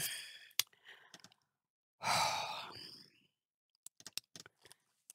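A person's long breathy sigh about two seconds in, fading away, followed by a few faint light clicks.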